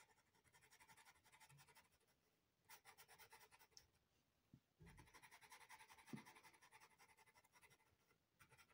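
Faint scratching of a Derwent pastel pencil drawing on Clairefontaine Pastelmat paper, in quick short strokes that come in about three runs with brief pauses between them.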